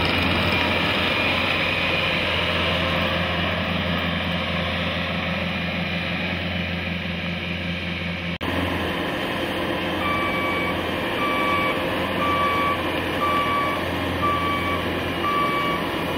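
Bobcat compact track loader's diesel engine running steadily, then, from about ten seconds in, its backup alarm beeping about once a second, six beeps, as the machine reverses.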